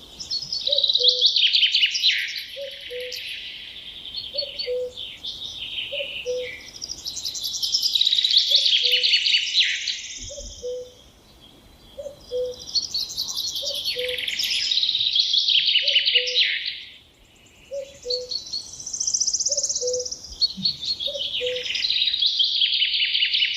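Songbird singing loud, long phrases of rapid, high trilled notes, each a few seconds long and coming again every five or six seconds. Beneath them a short, low two-note call repeats steadily, about once every second and a bit.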